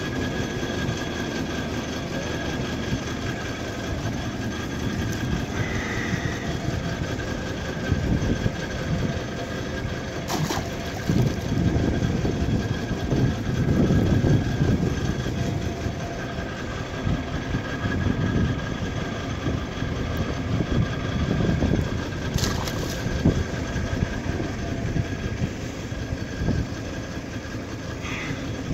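An engine of the well-drilling equipment running steadily, with a few faint steady high tones over an uneven low rumble that swells now and then.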